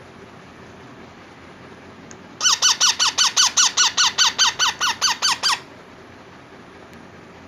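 Indian ringneck parakeet chick calling: a rapid run of about sixteen short calls, each falling in pitch, about five a second, lasting about three seconds from a couple of seconds in.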